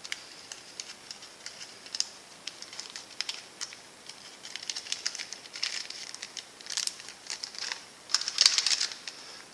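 Plastic packaging crinkling, with small scattered clicks, as a small circuit-board camera module is handled and its clear plastic wrapping is taken off. Near the end there is a louder burst of crinkling as a pile of antistatic bags is rummaged through.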